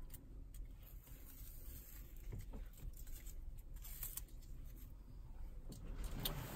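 Faint rustling and scattered light clicks from handling a long plastic wire channel and peeling off its adhesive backing, with a few sharper clicks near the end.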